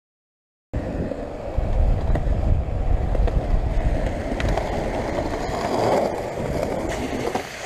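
Skateboard wheels rolling over rough concrete, a steady rumble with scattered small clicks and knocks. It starts abruptly about a second in.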